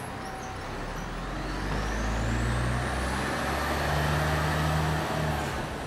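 A city bus close by, its engine rumbling louder toward the middle and falling away near the end, with a thin high whine climbing steadily in pitch.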